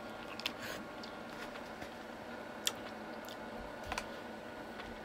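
Quiet chewing of a mouthful of fresh pineapple, with a few short moist clicks from the mouth.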